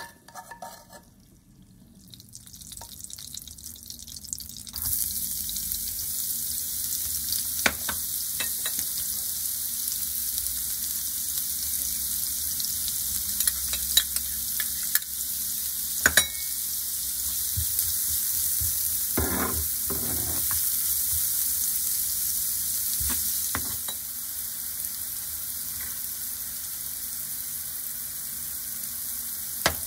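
Minced shallots and garlic frying in oil in a non-stick pan, sizzling. The sizzle builds over the first few seconds and then holds steady, with a few sharp knocks along the way.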